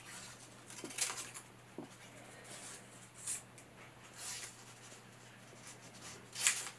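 Scissors snipping coloured paper, trimming the edges of paper feathers: several separate short snips, the loudest near the end.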